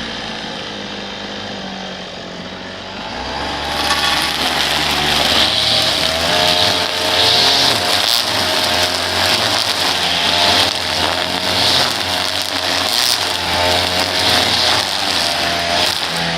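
Small petrol engine of lawn-care power equipment running, its pitch wavering. The throttle opens up about four seconds in, and it runs louder with a hiss on top.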